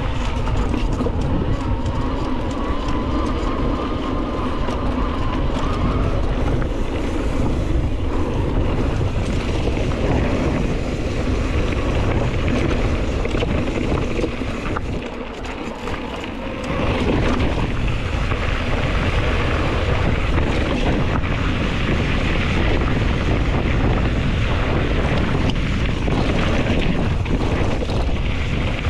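Wind buffeting the microphone and mountain bike tyres rolling over a dirt singletrack, with a faint whine over the first six seconds or so. The noise eases briefly about halfway through.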